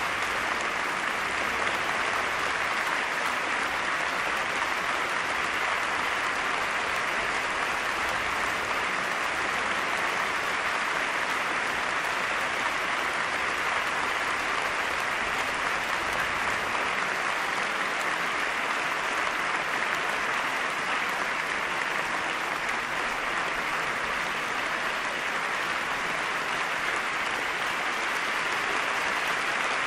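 Concert audience applauding: dense, steady clapping that neither builds nor dies away.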